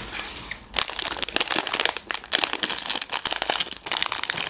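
Foil-lined plastic snack packet crinkling in the hands as it is pulled open: a short rustle at the start, then a dense run of crackles from about a second in.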